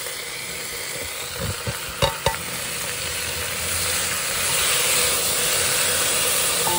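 Potatoes, dried buffalo meat and fresh tomatoes sizzling in hot oil in a metal pot as they are stirred with a metal ladle, with two sharp knocks against the pot about two seconds in. The sizzle grows louder in the second half.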